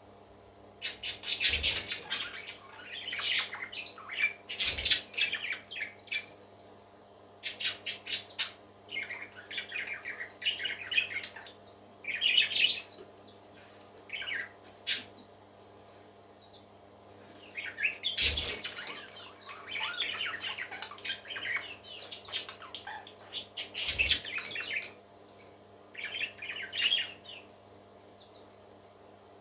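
Parrots chirping and squawking in bursts of rapid, high calls separated by short pauses. Four brief thumps come among them, over a steady low hum.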